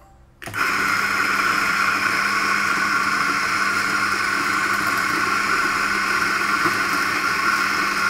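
Eureka Mignon Specialità espresso grinder's motor and flat burrs grinding coffee beans, a steady whirring hum that starts about half a second in and runs for the full timed dose of about 7.7 seconds.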